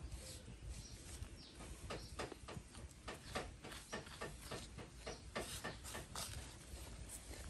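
Hands pressing and patting dry, gritty soil around seedlings in a plastic planting box, giving a run of soft, irregular crunches and taps several times a second.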